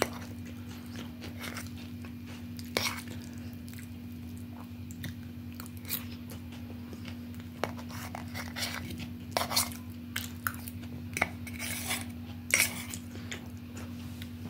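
Steel fork clicking and scraping against a stainless steel plate, in scattered taps that come more often in the second half, over a steady low hum.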